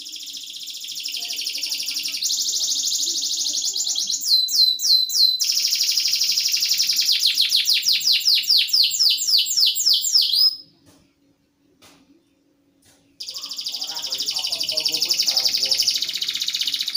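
Canary singing: fast rolling trills and a long run of quick downward-sweeping notes. The song breaks off about ten seconds in for a couple of seconds, then another trill starts.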